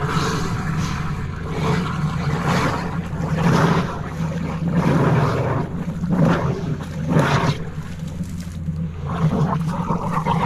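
High-pressure drain jetter running steadily with a low droning hum, its jet hose working down a sewer line blocked with tree roots. Irregular louder rushing surges come over the drone every second or two.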